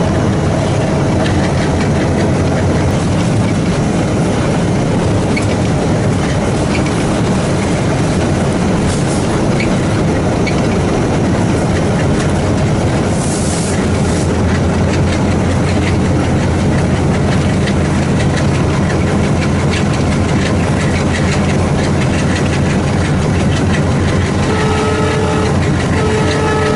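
ALCO WDG-3A diesel locomotive running steadily, its engine chugging while the train's wheels clatter over the rails. A short high hiss comes about halfway through.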